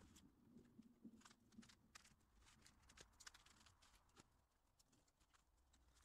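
Near silence, with faint scattered clicks.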